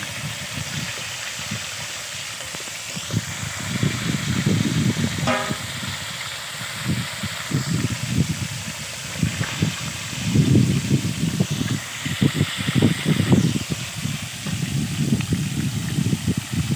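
Chicken wings deep-frying in a wok of hot oil on their second fry, the oil bubbling and sizzling, under a low uneven rumble that swells and fades. A short horn-like toot sounds about five seconds in.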